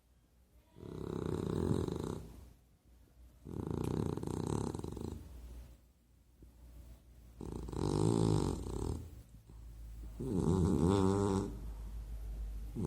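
A sleeping dog snoring loud: four long snores about three seconds apart, the later ones rattling.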